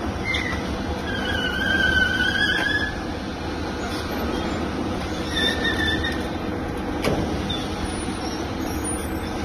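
Steady background rumble and hiss with two brief high-pitched squeals, the first about a second in and lasting under two seconds, the second shorter past the middle, and a single sharp click near the end.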